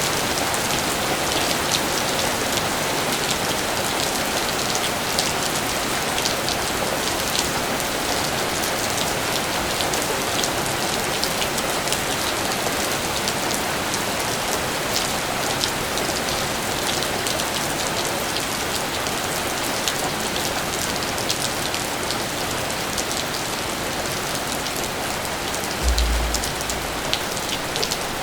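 Steady rain falling: an even hiss with many sharp individual drop ticks. A brief low thump comes near the end.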